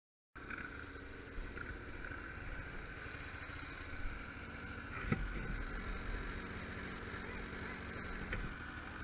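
Ski-Doo snowmobile running steadily as it rides across snow. The sound cuts in abruptly just after the start, and there is a single sharp knock about five seconds in.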